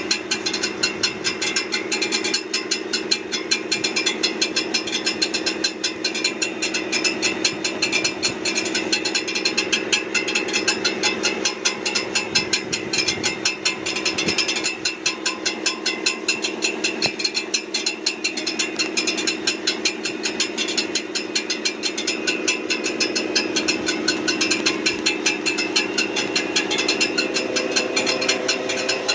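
Brand-new 2023 Ford F-150 running, with a fast, steady ticking and clanking rattle over the engine hum, coming from near the transmission: a noise the owner takes for a fault in the truck, which has only about 400 miles on it.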